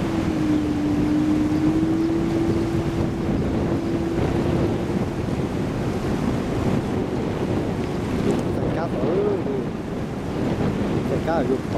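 Wind buffeting the microphone, with a boat motor's steady hum for the first few seconds. Brief voice sounds come near the end.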